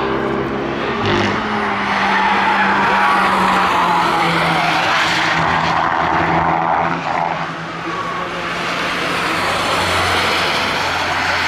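A second-generation Mazda MX-5's four-cylinder engine running at high revs as the car is driven hard through corners, its tyres scrubbing and squealing. The engine note dips briefly about two-thirds of the way through, then picks up again as the car pulls away.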